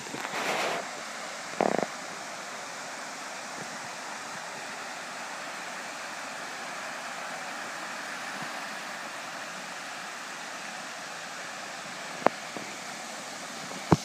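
Steady rush of creek water flowing over a concrete low-water ford, with a short burst of noise in the first two seconds and a couple of sharp clicks near the end.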